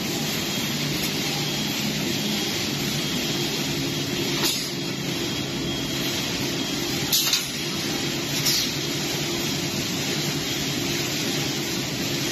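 Steady mechanical hum and hiss of an automated AAC steel-mesh handling line, its gantry manipulators and geared drive motors running, with three brief hissing bursts a few seconds apart.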